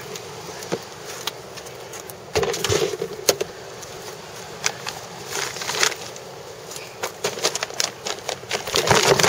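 Camcorder handling noise with footsteps on pavement: scattered rustles, clicks and knocks over a steady hiss, busiest near the end.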